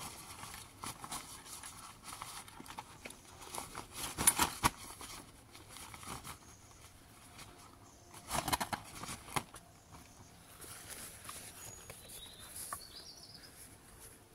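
Nylon fabric cover rustling and flapping as it is handled and pulled about, in irregular bursts, loudest about four seconds in and again around eight and a half seconds, with a few light clicks and knocks.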